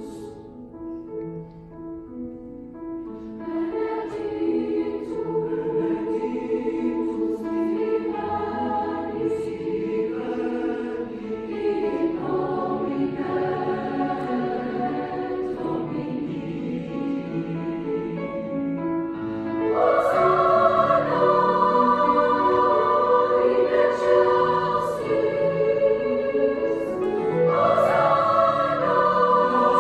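Large mixed choir singing a slow sacred choral piece with piano accompaniment. It starts softly, builds after a few seconds, and swells to full voice about twenty seconds in.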